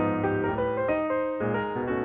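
Background piano music: a melody with chords, the notes changing several times a second.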